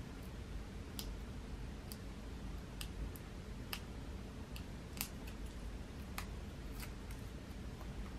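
Faint, scattered clicks and light taps, a dozen or so at irregular intervals, from paper craft pieces being handled, over a low steady hum.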